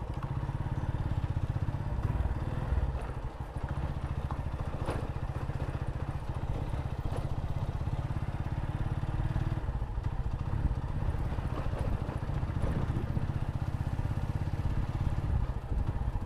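Motorcycle engine running steadily while riding, a dense low rumble with an even pulsing throughout, with a few faint clicks and rattles.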